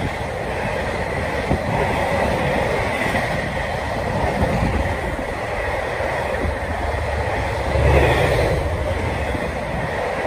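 Intermodal container freight train passing at speed, its container wagons' wheels running steadily over the rails, with a louder swell about eight seconds in.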